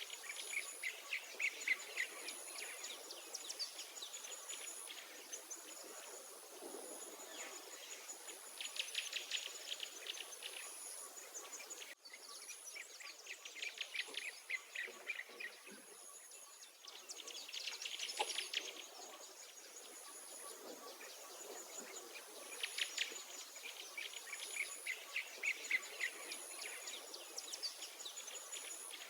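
Songbirds singing short, rapid trilled phrases that repeat every few seconds, over a continuous high-pitched insect chirring that pulses about once a second.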